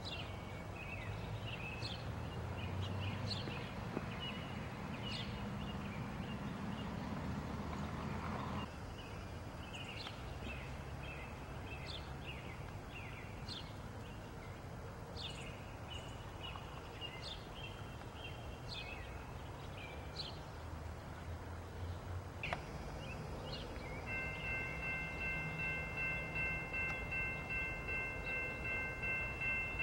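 Songbirds chirping repeatedly over the low rumble of an approaching train. About 24 seconds in, an electronic railroad crossing bell starts ringing with a steady, evenly pulsing high tone and becomes the loudest sound.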